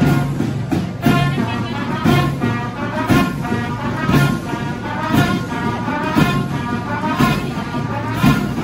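School band playing an instrumental piece live: a melody over regular drum beats.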